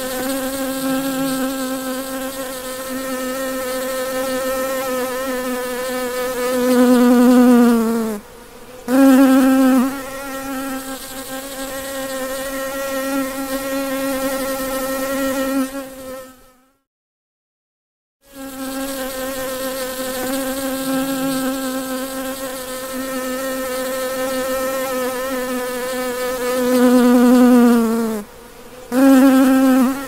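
A bee buzzing steadily at close range, a loud pitched drone. About seven seconds in it swells louder and sags in pitch, cuts out for a moment, then resumes. It stops for about a second and a half past the middle, then the same buzzing sequence plays again.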